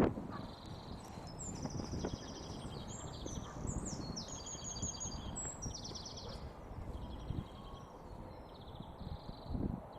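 Songbirds singing in rapid trilled phrases, one after another, over a low rumble with irregular dull knocks. The loudest knocks come at the very start and just before the end.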